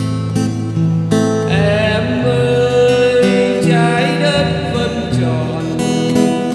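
Acoustic guitar playing a slow bolero, with a steady bass line and a wavering melody in the middle.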